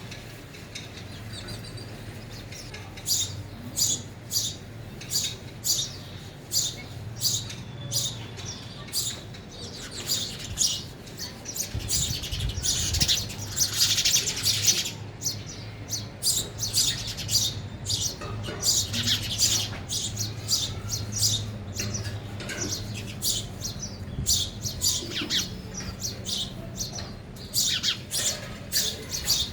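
Sparrows chirping: a continuous run of short, high chirps, several a second, busiest around the middle, over a faint low steady hum.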